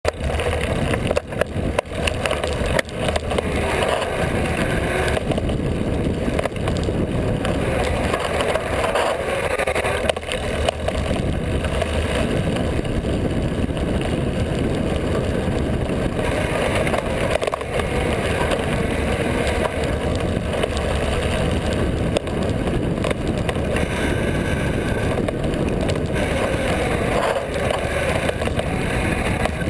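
Mountain bike riding fast down a dirt singletrack: steady rolling noise of the tyres on the trail, with the bike rattling and knocking over bumps throughout.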